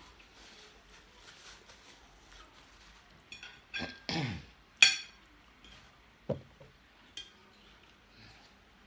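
Sharp clinks of a fork on a ceramic plate during a meal, the loudest about five seconds in and a lighter one about a second later. Just before the loud clink there is a short sound that falls in pitch.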